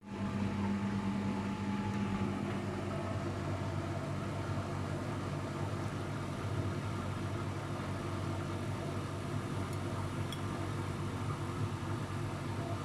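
Luxor WM 1042 washing machine running its spin cycle with an unbalanced load: a steady motor and drum hum, with a higher hum tone that fades out about two seconds in.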